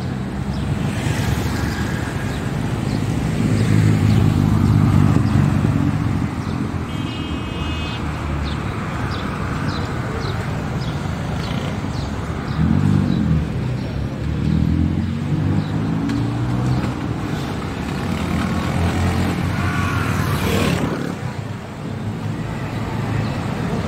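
Road traffic on a rain-wet street: motor vehicles' engines running and passing under a steady rumble, with an engine rising and falling in pitch around the middle and a vehicle swishing past near the end.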